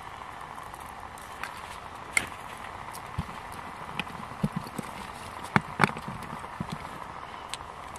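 Wood fire crackling in the base of a stainless storm kettle: a steady hiss with sharp pops and ticks scattered through, the two loudest close together about five and a half seconds in.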